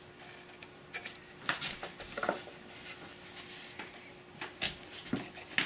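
Pencil scratching short lines on wood along a steel combination square, with a few light knocks as the square is shifted and set against the workpiece.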